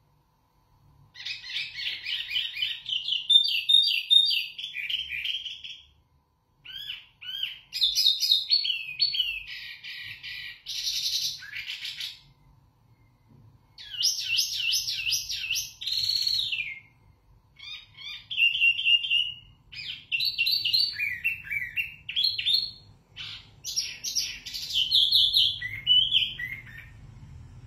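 Wambi mini singing loud, clear song: fast runs of high, varied notes with some trills and falling notes, in four long phrases broken by short pauses.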